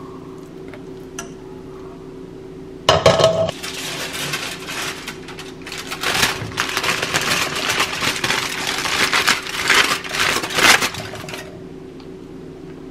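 Tomato sauce sizzling in a nonstick skillet as spaghetti is tossed in it, with clinks and scrapes of utensils against the pan, starting suddenly about three seconds in and dying away near the end. A steady low hum runs underneath.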